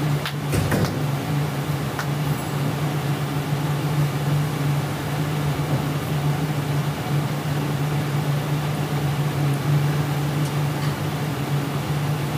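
Steady low hum with hiss, the room tone of an interview-room recording before anyone speaks, with a few faint clicks in the first couple of seconds.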